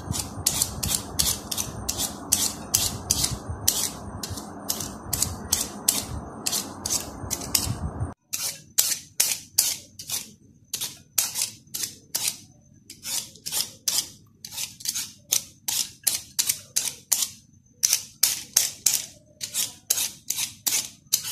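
A Y-peeler's blade scraping the skin off a raw potato in quick repeated strokes, about two or three short scrapes a second.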